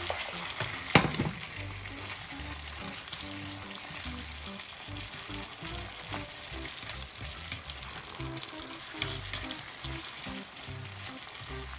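Chicken wings sizzling in creamy garlic sauce in a nonstick wok as they are tossed with wooden chopsticks, with scattered clicks of the chopsticks against the pan and a sharp knock about a second in.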